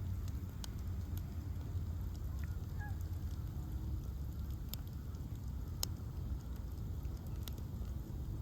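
Bonfire of ash logs burning: a low steady rumble of flames with scattered sharp crackles and pops, the strongest about six seconds in. A couple of faint short squeaks come near three seconds.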